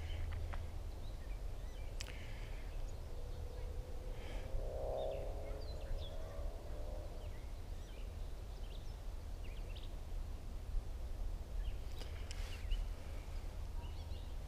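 Outdoor ambience: scattered short bird chirps over a steady low rumble, with a brief wavering hum in the middle.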